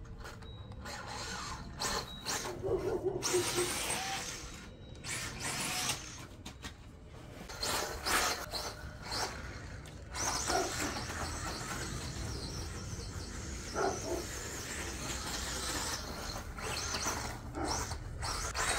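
Losi Mini-T 2.0 brushless 1/18 RC stadium truck driving through long grass and uneven dirt. Its electric motor whines in irregular bursts as the throttle is worked, with short rising sweeps as it speeds up. The tyres and chassis swish through the grass.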